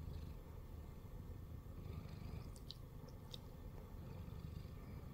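Siamese cat purring steadily, close up, with a few faint high ticks about halfway through.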